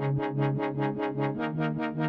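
Background electronic music: a synthesizer plays fast repeated notes, about seven a second, over sustained low tones.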